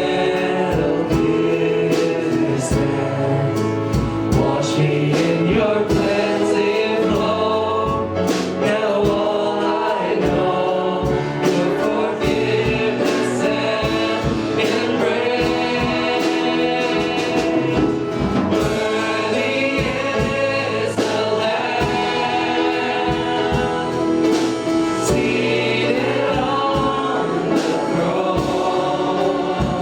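Church worship music: several voices singing together in a gospel style over a band, with a steady drum beat.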